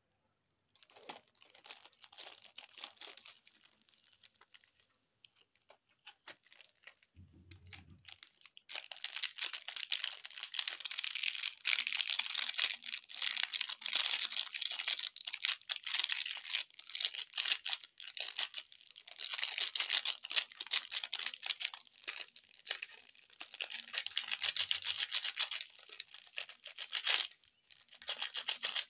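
Plastic candy wrappers crinkling and tearing as they are handled and opened by hand. The crackle is fainter at first and dense and continuous from about nine seconds in.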